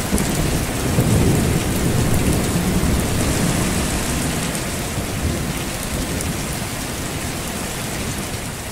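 Thunderstorm: steady rain with a low rumble of thunder that swells about a second in and then slowly eases off.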